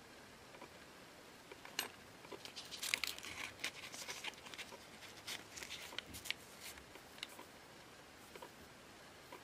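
Small metal and carbon drag washers handled and shuffled in a plastic parts case lined with tissue paper: light clicks and paper rustling, busiest from about two to seven seconds in.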